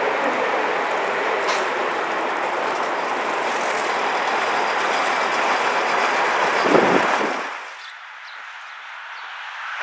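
Vintage 1945 Guy Arab II double-decker bus driving past among road traffic: a steady rushing vehicle noise with a louder swell about seven seconds in, then dropping away sharply.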